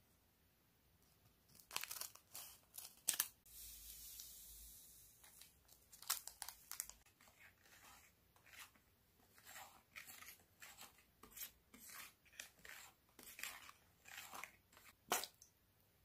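Foil powder sachet from a Popin Cookin sushi candy kit being cut open and emptied: a few sharp snips and crackles about two seconds in, a short hiss of powder pouring out, then a run of foil crinkling and light clicks against the plastic tray, with one louder click near the end.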